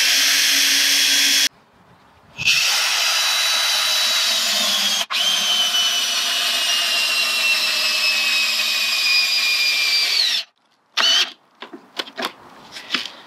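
Cordless drill boring into a timber railway sleeper. A short burst, a pause, then a long run whose whine slowly falls in pitch, and a few short blips of the trigger near the end.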